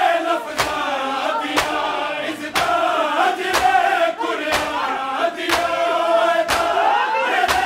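A crowd of men chanting a Punjabi noha in unison, with chest-beating (matam) hands striking together in a steady beat about once a second.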